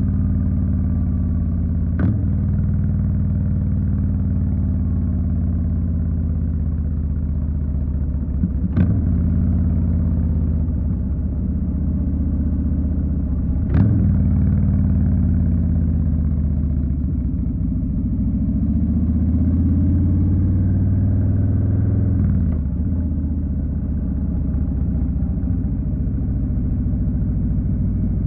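2020 Harley-Davidson Street Bob's Milwaukee-Eight 107 V-twin running under way, its engine speed rising and falling with the riding, with three sharp clicks spread through the first half.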